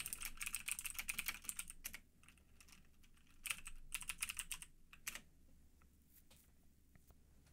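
Typing on a computer keyboard: a quick run of keystrokes for about two seconds, a pause, then a second short run of keys about three and a half seconds in, and a few single key presses after it.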